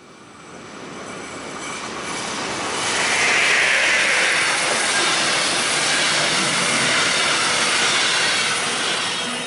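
Electric locomotive-hauled regional passenger train passing close: the noise swells as it approaches over the first three seconds, then a steady loud rush of wheels rolling on the rails with a high-pitched edge, easing off near the end.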